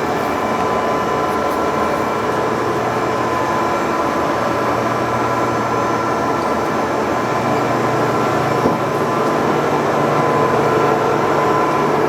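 Lehmann hollow-spindle lathe running under power: a steady mechanical drone with gear whine and a low hum that steps slightly higher in pitch partway through.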